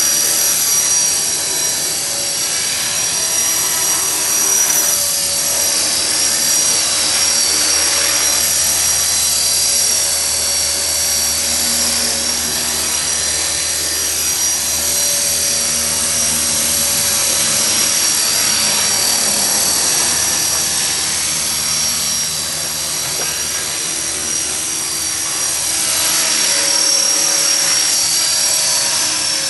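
EXI 450 electric RC helicopter in flight: a steady high whine from its motor and spinning rotor, with the pitch sweeping up and down now and then as it manoeuvres.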